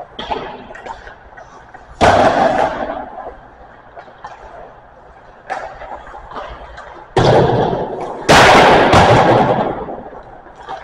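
Hockey pucks being shot and banging hard, ringing around an ice rink: a big bang about two seconds in and two more close together near the end, with fainter stick and puck knocks between.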